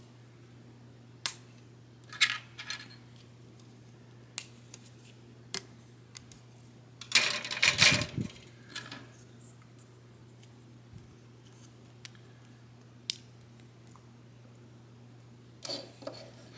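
Small plastic model-kit pieces being handled and snapped together: scattered clicks and short rattles, with a louder burst of rattling about seven seconds in.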